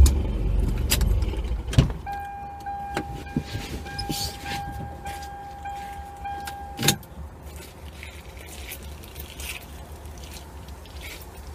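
A pickup truck's engine idles inside the cab and stops about two seconds in. A steady in-cab warning buzzer then sounds for about five seconds and cuts off with a sharp click, among a few knocks and rattles of movement in the cab.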